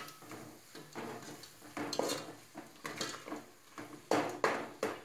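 Flat steel spatula scraping and clinking against an aluminium pot while stirring a thick onion-tomato masala, in irregular strokes, the loudest about two seconds in and near the end.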